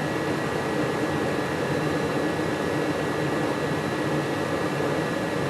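Rheem gas furnace running in heat mode: a steady whoosh of the blower and burners, with a thin, steady high whine through it.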